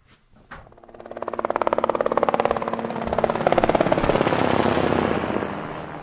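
A vehicle engine with a rapid pulsing exhaust note, growing louder over the first couple of seconds and then slowly fading.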